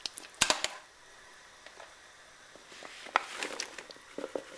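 A few sharp knocks about half a second in, then a rustling clatter with small clicks from about two and a half seconds on, as chopped onions and carrots are tipped into a big saucepan of boiling chicken stock.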